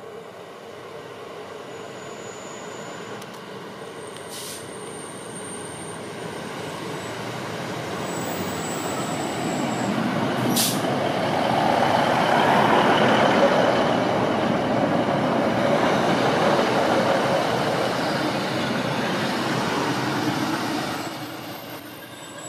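Northern Class 156 'Super Sprinter' diesel multiple unit running along the platform: underfloor diesel engines and wheels on rail grow louder as it approaches, are loudest about halfway through, and ease off near the end as the rear passes. A single sharp click sounds about halfway through.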